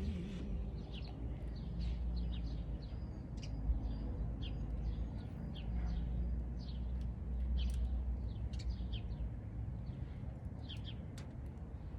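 Small birds chirping, many short high chirps scattered throughout, over a steady low rumble of outdoor background noise. The last note of a guitar-and-voice song dies away at the very start.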